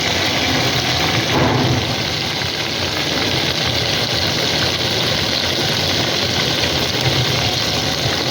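Yogurt-marinated chicken pieces frying in hot ghee in a kadhai: a steady, dense sizzle with crackle, over a low steady rumble.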